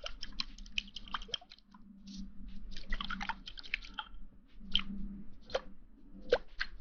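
Close-miked ASMR sounds: irregular wet crackles, clicks and squishes coming in quick clusters, thinning to single snaps in the second half.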